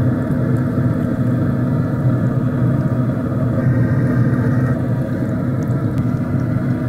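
Steady hum and rumble of a Traeger pellet grill's convection blower fan running, with a few fixed low tones that do not change.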